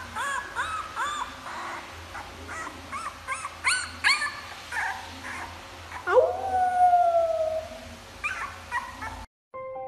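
Young puppy whimpering in a string of short, high, arched yips. About six seconds in it gives one long howl that rises sharply and then slowly sinks, followed by a few more short yips.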